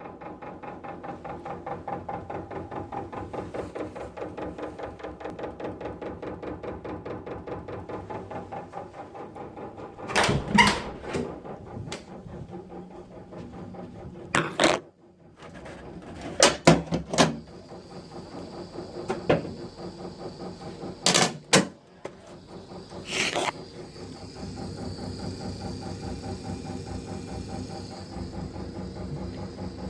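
Central-heating radiator and pipework fed by a Vaillant Ecotec Plus 831 combi boiler clanking while the burner fires. A fast, even rattle runs for the first several seconds. Then comes a series of loud sharp clanks, several in the middle stretch, and after them a steady hum with a hiss. The noise stops when the flame goes out even though the pump keeps running, so it comes from the boiler while it fires; the owner wonders whether the diverter valve is the cause.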